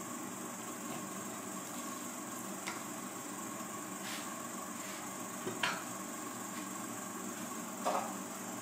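Steady background hiss with a few light knocks and taps of a steel knife on a wooden cutting board as pork skin is scored and the knife is set down. The sharpest knock comes a little past halfway, and a duller one near the end.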